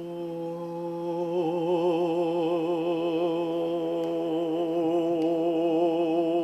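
A man chanting the Taoist healing sound "ho", the sound for the heart, as one long sustained tone on a single low pitch. About a second and a half in, the tone begins to waver with vibrato.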